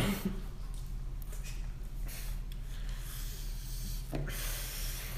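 A person slurping and eating spaghetti noodles: a few soft wet slurps, near the start, about two seconds in and about four seconds in, over a steady low hum.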